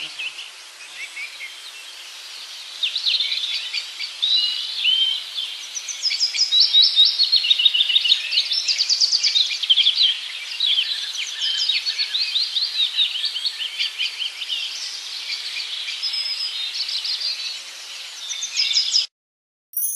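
Several birds chirping and singing in quick, overlapping calls over a steady background hiss. The calls grow busier about three seconds in, and everything cuts off abruptly about a second before the end.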